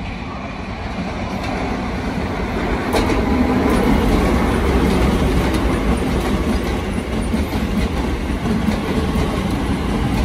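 Keisei Line electric commuter train running into the station past the platform, the rumble of its wheels building over the first few seconds and then holding steady, with scattered clacks of wheels on rail.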